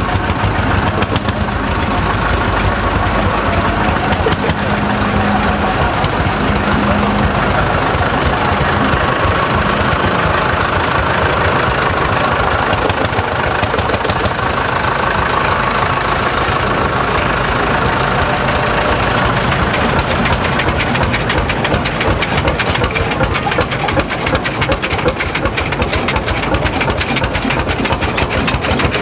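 Vintage tractor engines running as tractors drive past, with a rapid knocking beat that grows stronger in the last third as a Lanz Bulldog single-cylinder hot-bulb tractor passes close.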